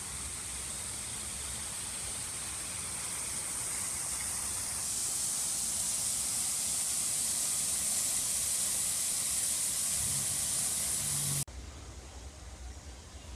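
A steady high-pitched hiss that grows a little louder about five seconds in and cuts off suddenly near the end.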